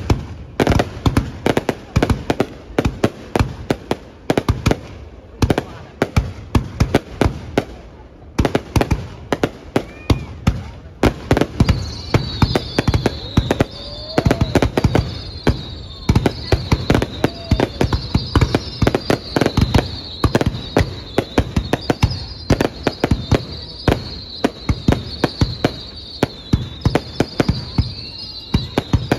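Aerial fireworks going off in a rapid, continuous barrage of loud bangs and pops. From about twelve seconds in, a wavering high-pitched whistle runs under the bangs.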